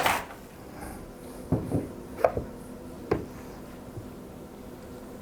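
A few scattered light knocks and clicks of handling, about five in all, over a faint steady hum.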